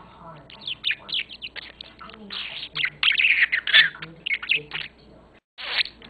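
Budgerigar warbling and chirping at a penguin toy: a fast run of short chirps that thickens into dense chatter a couple of seconds in. The sound cuts out for a moment near the end.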